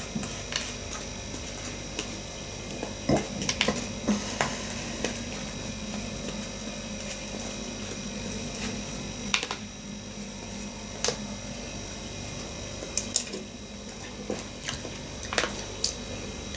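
Metal spoon clicking now and then against a plastic bowl as corn puffs in milk are stirred and scooped, with quiet chewing in between. A steady low hum sits underneath.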